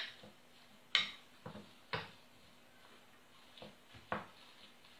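Metal spoon knocking and scraping against a clear container while mashing and mixing a thick chocolate biscuit paste: about six short, separate clinks at irregular intervals.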